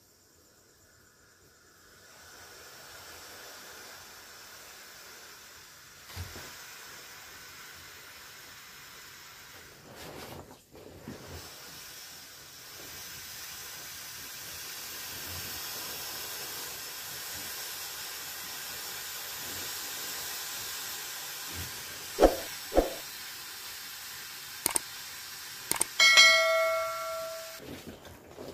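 Air hissing steadily out of the valve of an inflatable vinyl bear chair as it is squeezed and pressed to deflate it. Near the end come a few sharp knocks and a brief squeak from the vinyl being handled.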